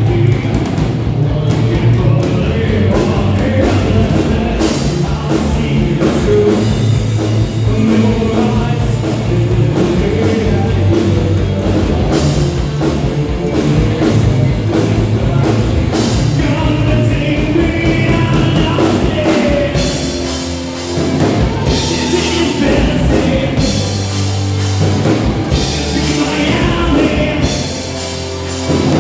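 Live rock band playing electric guitar, bass and drum kit, loud and driving. The bass and drums thin out briefly about twenty seconds in and again near the end.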